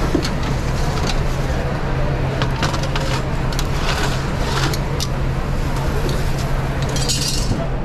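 Metal tongs clicking and clattering against a sheet tray and the grill grates of a wood-fired hearth grill, over a steady low kitchen hum; a short hiss sounds a little after seven seconds.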